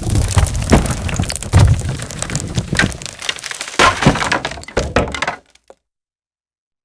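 Falling-debris sound effect: a dense run of cracking, breaking impacts over a low rumble, stopping abruptly about five seconds in.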